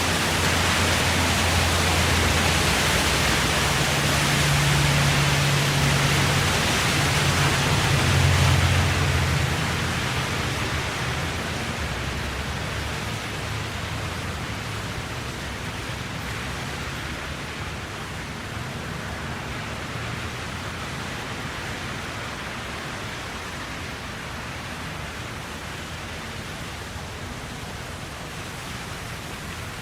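Road traffic noise: a vehicle's engine hum and tyre rush grow to a peak about eight seconds in, then fade away. What remains is a quieter, steady rush of distant road noise.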